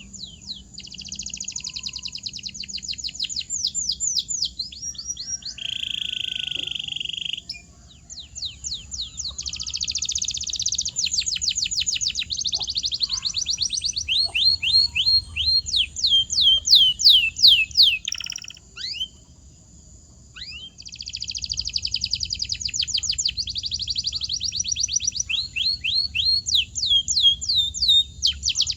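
Domestic canary singing a long song of fast rolling trills and rapid series of downward-sweeping whistled notes, with a short steady buzzy tour about six seconds in and a brief pause about two-thirds through.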